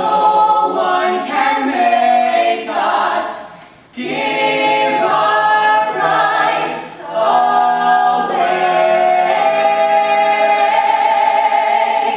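Musical theatre ensemble of young men's and women's voices singing in harmony, three lead voices out front with the chorus behind. The phrases break and come back in sharply about four seconds in, and the last one swells into a long held chord that is then cut off.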